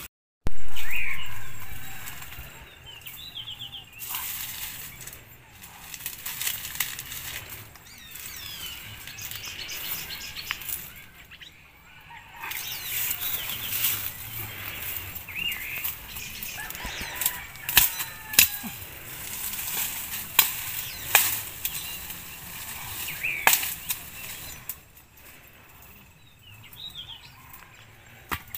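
Dry sticks and brush rustling and snapping as dead branches are gathered by hand from a pile, with a loud rustle just after the start and sharp cracks clustered in the middle. Birds chirp briefly now and then.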